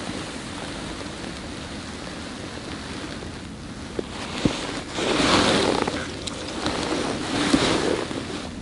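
Wind buffeting an outdoor microphone as a steady rush of noise, swelling louder twice, about five and about seven and a half seconds in, with a few faint clicks before the first swell.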